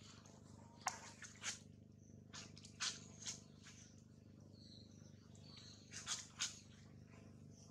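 A few scattered short, faint clicks and rustles over a steady low background hum, from macaques shifting about on dry leaf litter.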